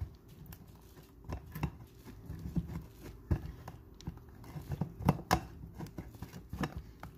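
A block of cheese being grated on a stainless-steel box grater: irregular scraping strokes, with a few sharper knocks about three and five seconds in.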